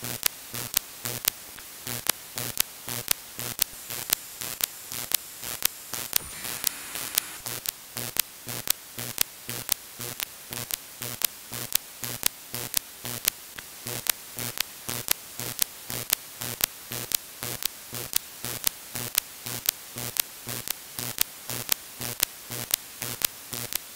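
Radio interference on the 2-metre amateur band, received by an SDR in upper-sideband mode. A steady static hiss is broken by sharp, regular clicks, about three a second, each with a short low buzz. This is the noise source disrupting a local 2 m repeater.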